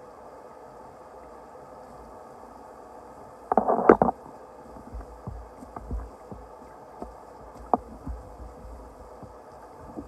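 A short burst of rustling and clattering about three and a half seconds in, followed by a few scattered light knocks and low thumps, like things being handled.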